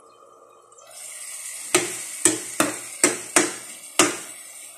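Tomatoes and garlic sautéing in oil in a frying pan, a steady sizzle that grows louder about a second in as the glass lid is lifted. Over it come six sharp clinks of metal against the pan, about two a second, as the pan is worked.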